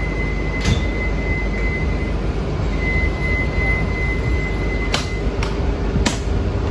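Resort transit bus engine idling steadily, with a thin high whine and four sharp clicks and knocks inside the cabin.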